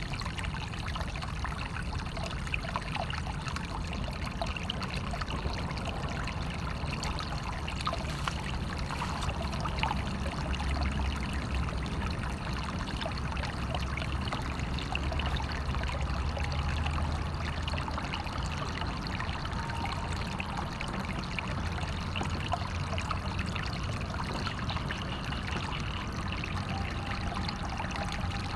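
Natural running water flowing and trickling steadily, with many small splashes and gurgles and a low rumble underneath.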